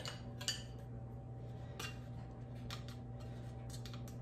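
Light scattered clicks and clinks of a set of measuring spoons being handled, over a low steady hum.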